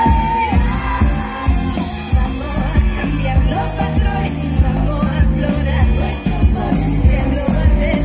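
Live pop band playing, with a steady drum beat and heavy bass under a woman singing. A high held note ends about half a second in.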